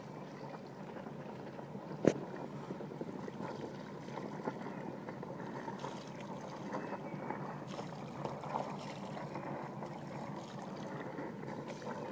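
Water swishing and gurgling steadily along a sailing yacht's hull as it moves through calm water, with one sharp knock about two seconds in.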